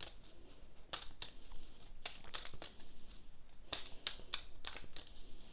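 Tarot cards being handled and laid out: scattered light snaps, flicks and rustles of card stock.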